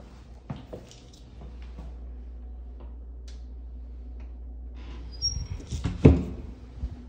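A closet door being handled: a few light clicks and knocks, then a brief high squeak about five seconds in and a loud thud about a second later as the door is pushed to.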